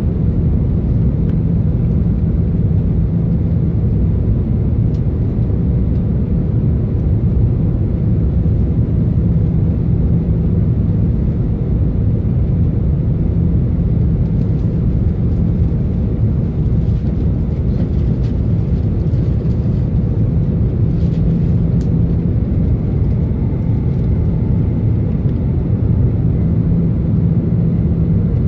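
Steady low drone of an Airbus A380's Rolls-Royce Trent 900 engines and rushing airflow, heard inside the upper-deck cabin during the climb after takeoff.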